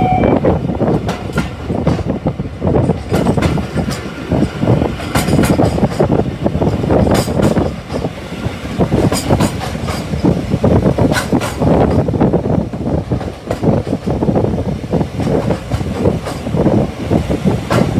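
Railway carriage rolling along track, heard from on board: a continuous rumble with irregular sharp clicks and clacks of the wheels over rail joints and pointwork.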